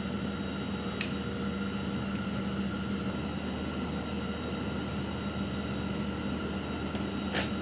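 A steady low hum over an even hiss, with a faint tick about a second in and another near the end.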